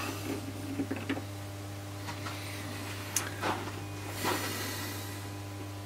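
Brass workpiece being handled and taken out of a small lathe's chuck: a few light clicks, a sharp click about three seconds in and two short scrapes, over a steady low hum.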